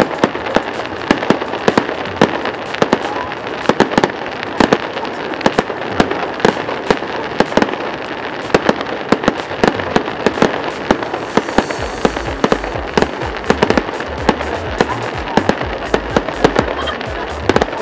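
Fireworks display: a dense, continuous barrage of bangs and crackling bursts, several a second. A deep low rumble sets in about two-thirds of the way through.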